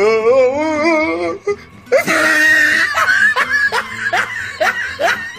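Comedic background music with a laughing voice: a wavering laugh in the first second and a half, then a run of short rising notes.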